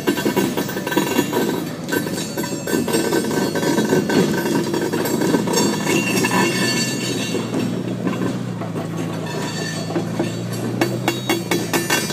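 Loaded railroad car rolling slowly on the rails, with irregular clanking and clicking from its wheels and couplings. Under it runs the steady drone of the Can-Am Commander side-by-side's engine, which is towing it under heavy load.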